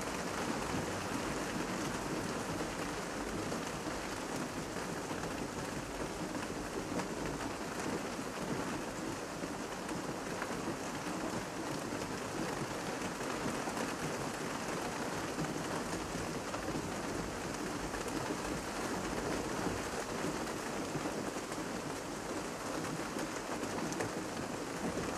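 Heavy rain falling steadily, a dense even hiss of drops with no breaks.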